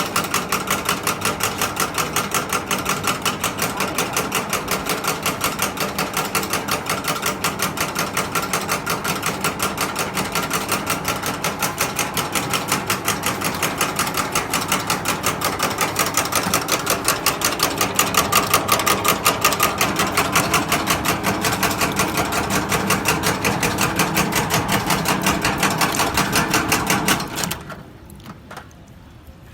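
Aloe vera dicing machine running, its cutters chopping in a fast, even rhythm of about four strokes a second, then stopping near the end.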